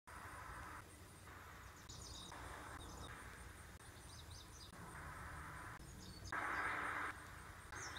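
Faint outdoor ambience: insects buzzing in repeated pulses of about half a second with a steady high trill behind them, and a few short bird chirps.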